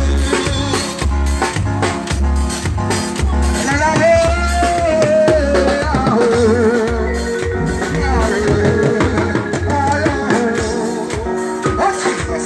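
Live band music played through a large sound-system speaker: a heavy, steady bass beat with drums, and a singing voice carrying the melody.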